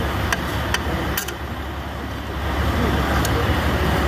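Light taps on a screwdriver driving the spring lock clip out of a Kenworth truck mirror housing, about two a second: three taps, a pause of about two seconds, then two more. A steady low hum runs underneath.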